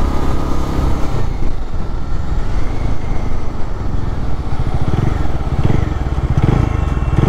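Bajaj Dominar 400's single-cylinder engine running as the motorcycle cruises, heard from the rider's seat, with a steady rush of road and wind noise. The engine's pulsing grows more pronounced about five seconds in.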